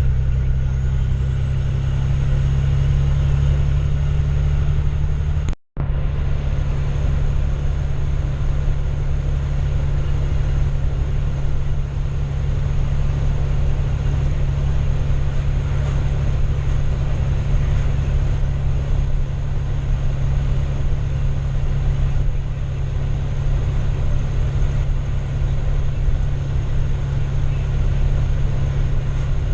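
Farm tractor's diesel engine running steadily under way, a deep, even drone. It drops out for an instant about six seconds in.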